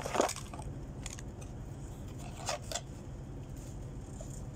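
Handling noises: a brief rustle just after the start and two quick scrapes about two and a half seconds in, likely from handling the phone and its plastic cover, over a steady low hum.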